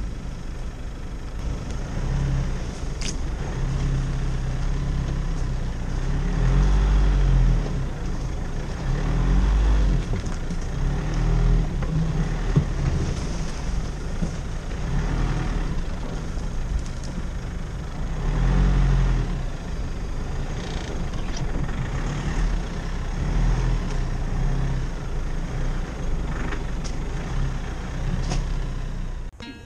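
4x4 vehicle engine running under load, its pitch rising and falling repeatedly as it revs up and eases off while driving. It cuts off suddenly near the end.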